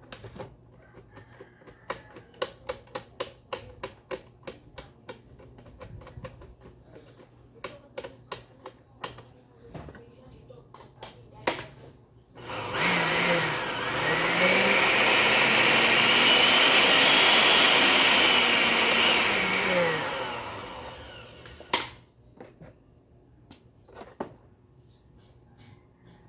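Osterizer blender clicked and handled for about twelve seconds, then its motor switched on and run for about eight seconds: the whine rises in pitch as it speeds up, holds, then falls as it winds down, followed by a single click. This is a test run of the blender after repair of its push-button switch.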